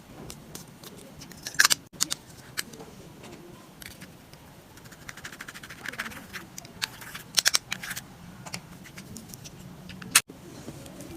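Slime being squished and poked by hand, giving irregular sticky crackles, clicks and small pops, with a few louder clusters and one sharp snap near the end.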